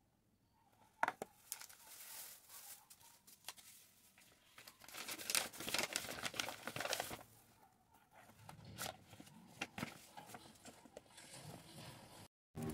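Kraft paper bag and plastic packaging rustling as they are handled and opened, in uneven spells with small clicks, and one sharp click about a second in.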